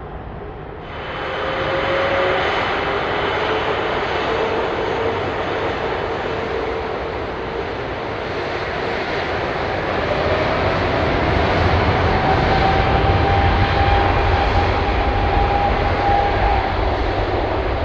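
Twin-engine jet airliner's engines running at takeoff power, a broad jet noise that gets louder about a second in and swells again later, with a whine that slowly rises in pitch.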